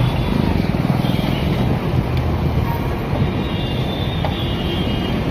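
Steady low rumble of close city traffic, a bus and motorbikes running alongside, heard from a bicycle riding through it. A few faint high tones sound above the rumble.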